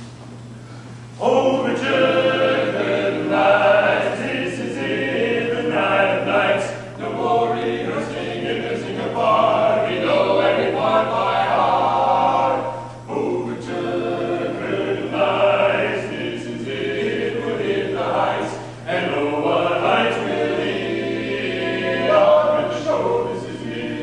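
Four men singing a cappella in close harmony, starting about a second in, with short pauses between phrases. A steady low hum runs underneath.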